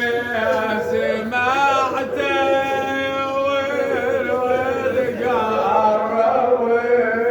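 A man chanting a mournful Shia Husseini lament (nai) in Arabic, unaccompanied, drawing out long melismatic notes that waver and bend in pitch.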